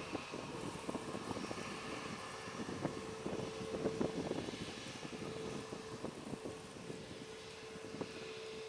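Airbus A330neo's Rolls-Royce Trent 7000 turbofans running at taxi power: a steady jet hum holding one pitch, over an uneven low rumble with crackling wind buffeting on the microphone.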